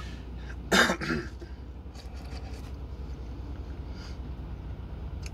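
A woman clears her throat with a short double cough about a second in. Faint mouth and chewing clicks follow, over a low steady hum.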